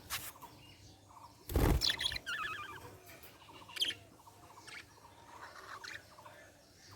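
Budgerigars chirping and warbling in short scattered calls, with a quick run of chattering notes just after two seconds in. A loud burst about a second and a half in stands out above the chirps.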